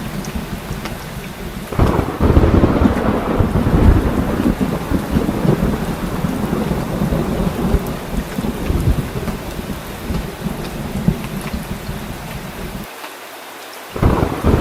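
Heavy rain pouring steadily with thunder rumbling. The rumble swells suddenly about two seconds in, and the deep low end drops out for about a second near the end.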